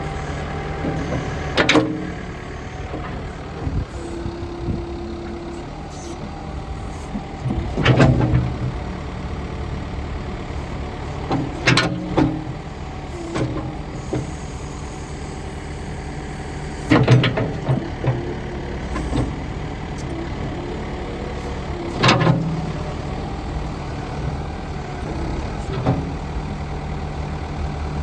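Turbo diesel engine of a New Holland B75B backhoe loader running steadily while the backhoe is worked, with sharp metallic clanks every few seconds and a brief steady whine about four seconds in.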